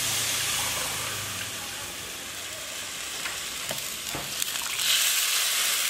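Chicken pieces and onions sizzling in oil and spice paste in a steel wok. The sizzle grows louder and brighter near the end as a glass of water is poured into the hot pan, with a few light knocks just before.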